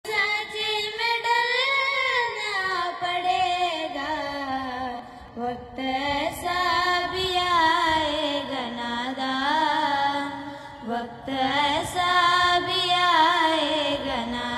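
Two girls singing together into handheld microphones over a PA, unaccompanied, in long gliding notes that waver up and down.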